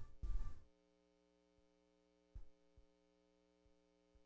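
Faint steady electrical hum, with a short burst of noise at the start and a few soft clicks of a small screwdriver and tiny laptop screws being handled.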